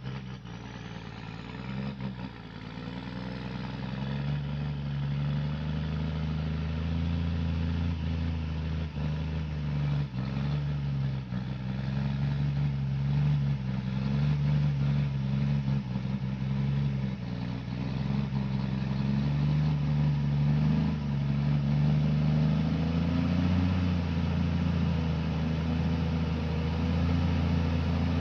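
A heavy vehicle engine running steadily under load, its low note wavering slightly in pitch. It grows louder over the first few seconds, then holds.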